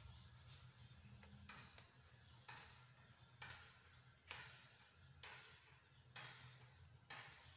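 A series of faint light taps, roughly one a second, as small rounds of semolina harcha dough are set down and pressed onto a metal baking tray.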